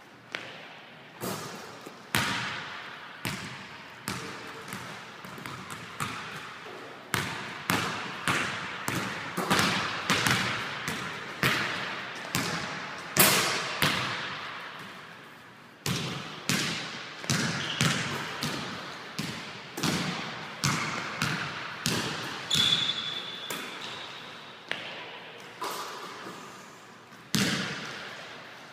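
Basketballs bouncing on a hardwood gym floor: an irregular run of hard bounces, several a second at times, each echoing in the large hall.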